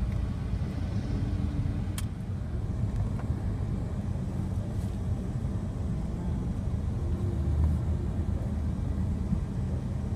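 Steady low rumble of a car driving, heard from inside the car. A single sharp click about two seconds in.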